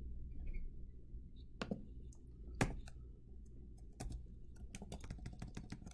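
Computer keyboard and mouse clicks while a spreadsheet formula is edited: a couple of separate clicks, then a quicker run of key taps from about four seconds in, over a faint low hum.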